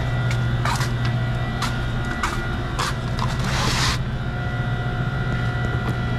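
A steady low machine hum runs throughout, with a few short rustles and knocks over it. The loudest rustle comes about three and a half seconds in.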